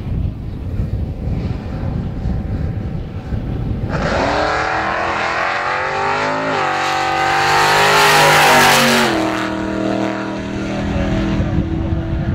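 Drag-racing vehicle accelerating hard down the strip. About four seconds in the engine note rises sharply, drops at a gear change, climbs again to its loudest, then falls away as the throttle is lifted, leaving a lower, steady engine note. Before the run there is only a low wind rumble on the microphone.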